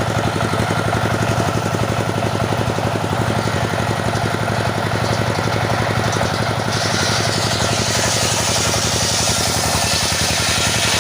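Engine of a wood saw running steadily with a rapid, even pulse. About seven seconds in, a higher hiss joins as the saw cuts into teak.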